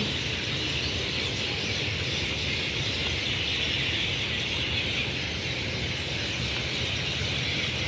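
A large flock of birds in the trees calling all at once, a dense, unbroken din of chatter; the flock is gathered in its migration season.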